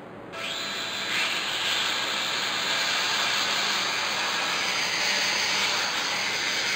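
A WLToys V959 mini quadcopter's motors and propellers spin up about half a second in, rising over the next second into a steady whirring hiss as it lifts off and hovers on a propeller straightened by bending.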